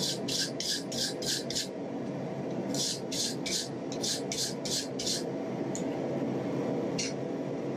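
Steel wire brush scrubbing scale off glowing-hot steel on an anvil: quick scratchy back-and-forth strokes about four a second, in two runs of a couple of seconds each, then two single strokes near the end, over a steady low background noise.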